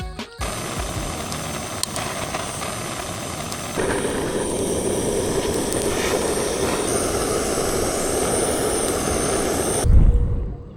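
Steady rushing of river water flowing past, louder from about four seconds in, ending with a low thump near the end.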